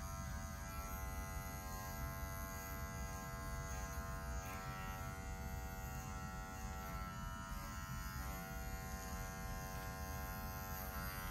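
Cordless pet grooming clipper running with a steady, even buzz while it clips the fur on a dog's paw.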